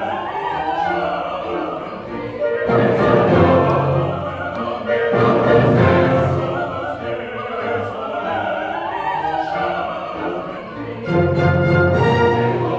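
A mixed choir singing with a small instrumental ensemble accompanying, the music swelling louder a few seconds in and again near the end.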